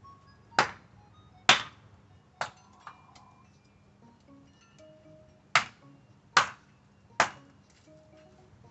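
Six sharp knocks in two sets of three, a little under a second apart, each ringing briefly, over faint background music.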